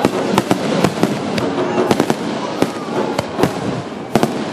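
Fireworks going off in quick, irregular sharp bangs, several a second.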